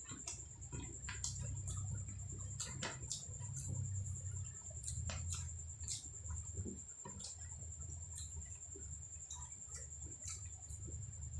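Close-miked chewing and eating mouth sounds: irregular wet clicks and smacks over a low rumble, with a thin steady high whine.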